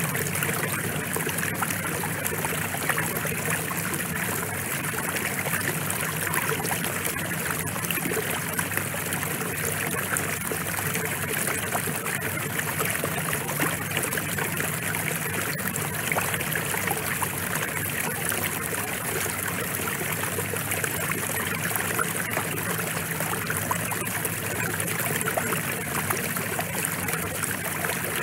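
Recorded rain falling, a steady, even hiss with no change or break.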